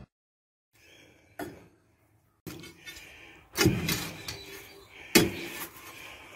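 A long steel bar being worked into the soil of a trench: three heavy strikes about a second and a half apart, with a fainter knock before them and scraping and rustling between.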